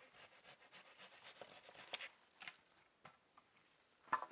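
Dry firewood being worked by hand: scratchy crackling and scraping of wood, with a few sharp cracks, the loudest about four seconds in.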